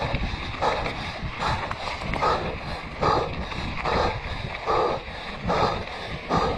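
Mountain-bike rider breathing hard with exertion, about one heavy breath every 0.8 s. Underneath is a low rumble of wind and tyres on a dirt track.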